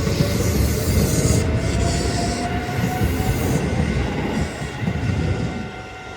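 Keisei 3600-series six-car electric train pulling away, with a slowly rising motor whine over heavy wheel-on-rail rumble. The sound drops off about five and a half seconds in as the train moves off.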